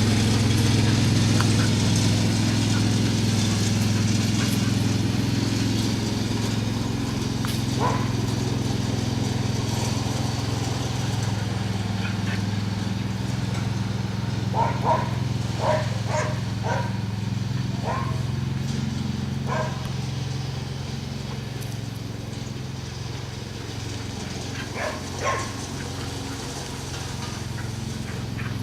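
Lawn mower engine running steadily while a border collie barks at it in short runs: one bark, then a quick string of barks, then a pair near the end.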